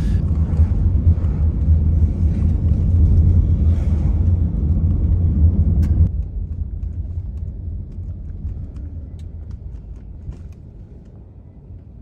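Low, steady road and engine rumble heard inside a moving car's cabin. It drops sharply about halfway through, then fades further with a few faint ticks.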